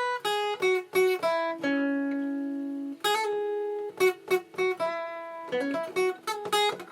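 Guitar picking a melodic fill of quick single notes, with a chord left ringing for about a second and a half a little after the start.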